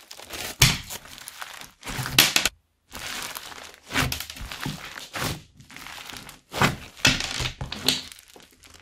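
Hands squeezing and pressing crunchy floam slime packed with foam beads: a series of crackling, popping squishes, with a short silent break about two and a half seconds in.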